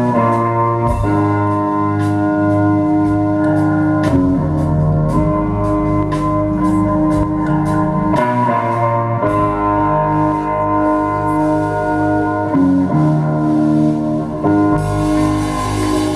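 Live blues band playing loud: a Stratocaster-style electric guitar holds chords that change every few seconds over bass and drum hits. A high hiss joins about three-quarters of the way in.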